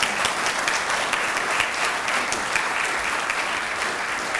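Audience applauding steadily: many hands clapping in a dense, even patter, welcoming a speaker to the lectern.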